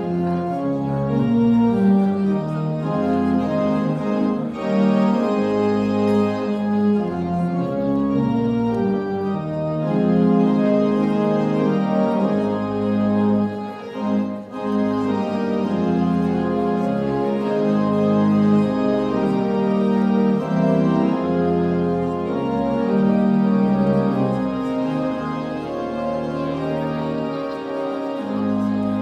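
Organ music: slow, held chords changing every second or so, with a brief dip about halfway through.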